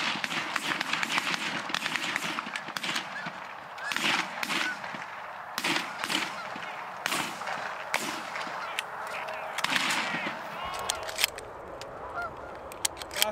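Canada geese (honkers) honking loudly as a flock flushes off a pond, under a volley of shotgun shots, sharp cracks coming every second or so. The shots thin out in the last few seconds while the honking goes on.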